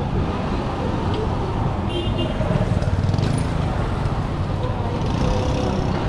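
Street traffic noise, with vehicles running by and faint voices in the background.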